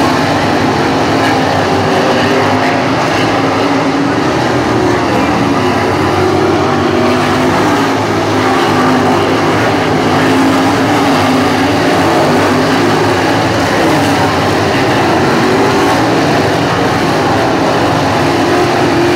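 A field of dirt-track race cars' V8 engines running hard together around the oval, one loud continuous mass of sound. The engine pitch keeps rising and falling as cars go by.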